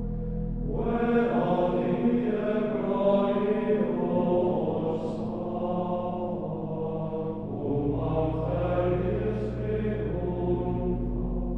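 Background music of voices chanting in long held notes over a steady low drone.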